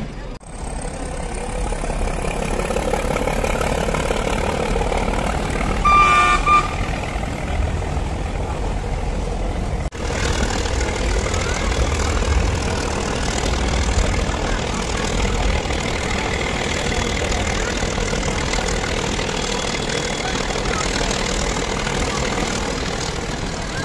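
Steady running noise of a diesel-pushed mountain train heard from inside a coach, with a short horn toot about six seconds in.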